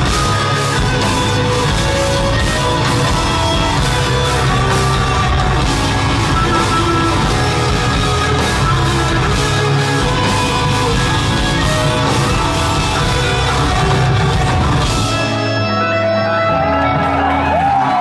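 Instrumental progressive metal played live by two extended-range electric guitars and a drum kit. About fifteen seconds in, the drums stop and the guitars hold ringing chords as the song ends, and rising and falling whistles from the audience come in near the end.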